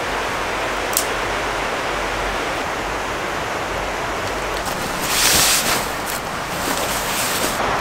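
Mountain river rushing steadily, an even wash of water noise. About five seconds in, a louder swell of hiss rises for under a second.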